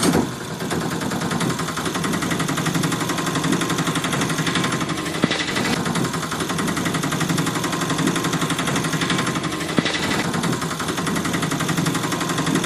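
A small engine running with a fast, steady rattle.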